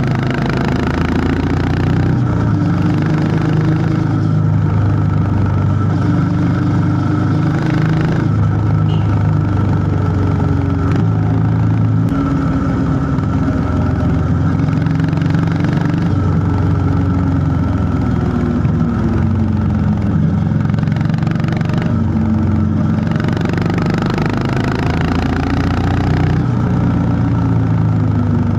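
Honda CB350 H'ness single-cylinder engine thumping under way, its note rising and falling in pitch several times as the throttle is opened and eased.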